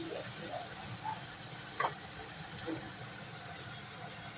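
Chopped onion, garlic and green chillies sizzling in oil in a frying pan over high heat, a steady hiss. The spatula clinks once against the pan a little under two seconds in.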